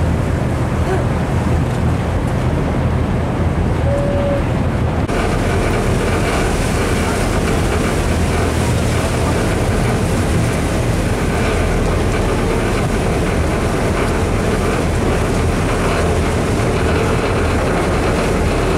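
Steady rumble of a moving riverboat: engine and churning water mixed with wind on the microphone.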